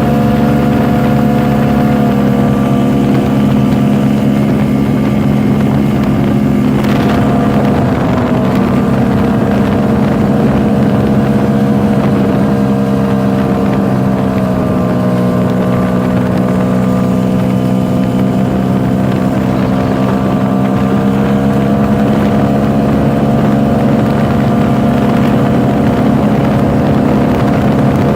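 Vintage snowmobile's two-stroke engine running steadily and loudly, its pitch dipping briefly about seven seconds in.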